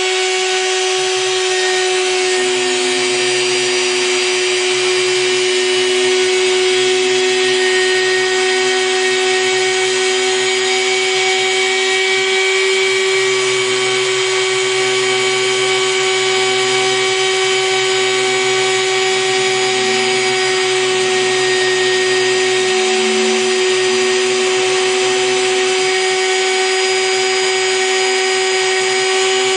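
Router spindle of a small CNC mill running with a steady whine while a 0.8 mm bit engraves copper-clad PCB. A lower rumble underneath drops out and returns several times as the cut moves along.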